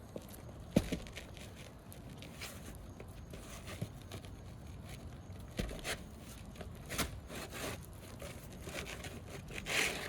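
A tool working under asphalt roof shingles, giving scattered scrapes and clicks with a sharp knock about a second in and a longer scraping rustle near the end: prying at the shingles to reach a hidden nail.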